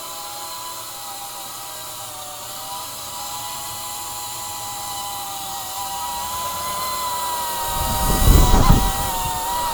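EMAX Tinyhawk 2 Race micro drone's brushless motors and propellers whining steadily, the pitch wandering slightly with throttle. A loud low rumble comes in about eight seconds in.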